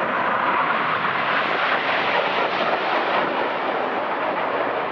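Red Arrows' BAE Hawk jets flying past: a loud, steady rush of jet noise.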